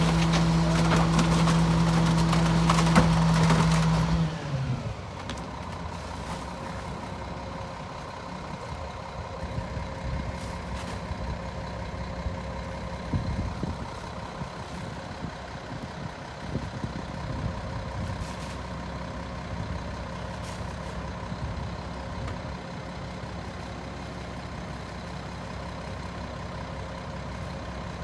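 Mack MR garbage truck's diesel engine held at raised revs while the Leach rear-loader packer runs its hydraulic compaction cycle, dropping suddenly to a steady idle about four seconds in. A few light knocks follow as bags go into the hopper.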